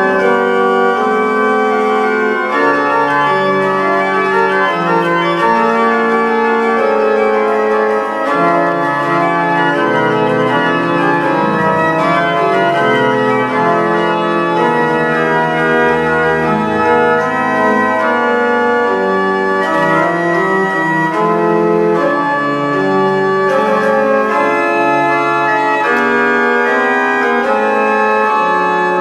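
Organ music: slow, sustained chords that shift from one to the next, with deep bass notes coming in about halfway through.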